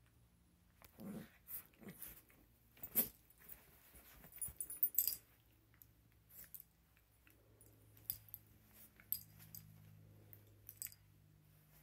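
Two small dogs play-wrestling on a bed: irregular bursts of scuffling and short dog noises, busiest in the first five seconds, with sharp high clicks, then lighter scattered clicks and rustling.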